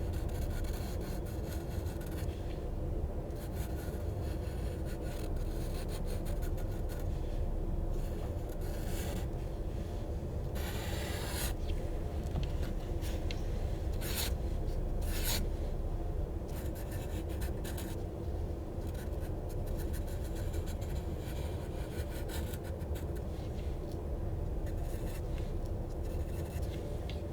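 A drawing tool scribbling on paper: irregular scratchy strokes, some quick and some drawn out for about a second, over a steady low hum.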